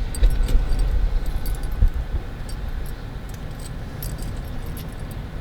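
Light metallic jingling and clinking over a steady low rumble of a vehicle on the move.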